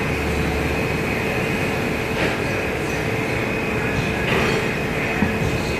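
Black-sesame-oil press machinery running: a steady mechanical din with a constant whine, and a couple of faint clicks about two and four seconds in.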